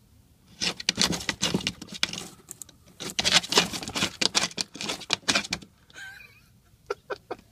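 A hen scratching in dry leaf litter against a cardboard box, making a nest: a quick run of scratchy scrapes and rustles lasting about five seconds, then a few separate taps near the end.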